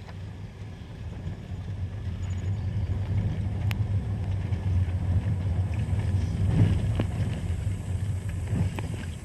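Car engine and tyre noise heard from inside the cabin while driving slowly: a steady low rumble, with a sharp click about a third of the way in and a few faint knocks later.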